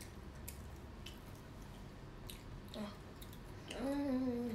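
Children chewing and biting into breaded fried mozzarella bites, with a few crisp clicks of biting and chewing. Near the end a child hums a short, wavering "mm".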